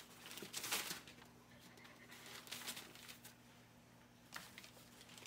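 Faint rustling and shuffling of paper bedding in a whelping box, with a brief louder rustle just under a second in.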